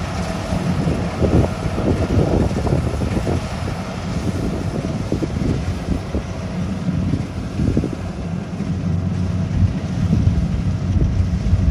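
Kubota rice combine harvester running steadily under load as it cuts and threshes rice: a continuous low engine and machinery hum, with wind gusting on the microphone.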